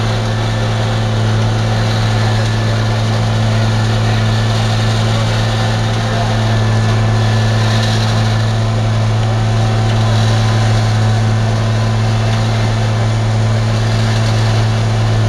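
Diesel engines of a Terex CR552 asphalt paver and a Peterbilt dump truck running steadily, a loud unchanging drone, as the truck feeds asphalt into the paver's hopper.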